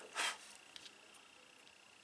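Cardstock cutouts handled on a scrapbook page: a brief soft rustle just after the start, then a few faint light taps.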